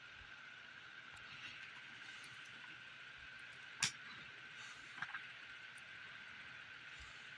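Faint steady room hiss, with one sharp click about four seconds in and two lighter clicks about a second later: a comic trade paperback being handled and its pages turned.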